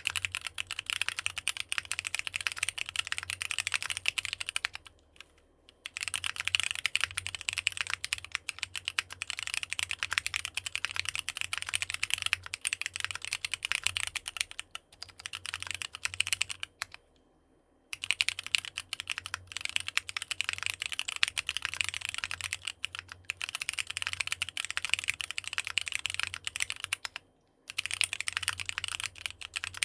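Continuous fast typing on a NEO65 65% mechanical keyboard with AKKO Sponge tactile switches: a dense stream of keystroke clicks, stopping briefly three times, about five seconds in, past the middle and near the end.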